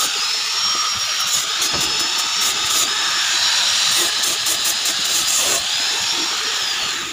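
Angle grinder with a sanding pad running against the wooden slats of a chair seat: a steady high motor whine over the hiss of abrasion. The whine sags in pitch a few times as the pad is pressed into the wood, and the tool falls away right at the end.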